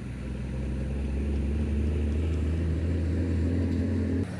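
Small boat's motor running at a steady pitch, a low engine hum that swells over the first second and then stops abruptly near the end.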